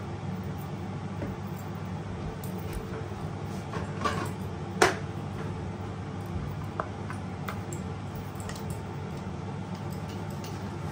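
Kitchen handling on a bamboo cutting board: two sharp knocks about four to five seconds in, the second the loudest, as a ceramic bowl and avocado are set down, then a few light knife taps on the board. A steady low hum runs underneath.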